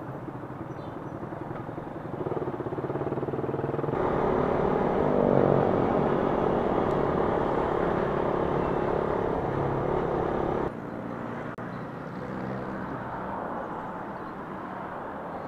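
Suzuki Raider 150's single-cylinder carbureted engine running under way, with wind and road noise. The sound changes abruptly about four seconds in and again near eleven seconds, with a louder, steadier stretch in between and a quieter stretch near the end.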